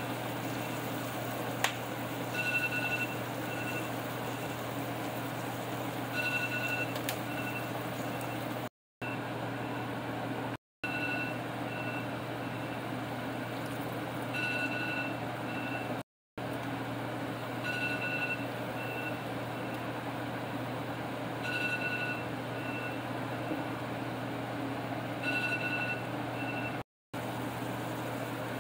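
Ground beef sizzling steadily in a cast iron skillet over a low steady hum, with a sharp tap about one and a half seconds in. A short electronic beep pattern, one longer beep followed by a couple of short ones, repeats about every four seconds, and the sound drops out completely four times for a moment.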